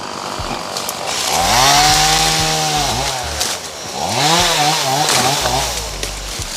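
Chainsaw idling, then revved up twice, each run about two seconds long; the pitch rises, holds and falls on the first, and wavers up and down on the second, as the saw is used to cut small trees.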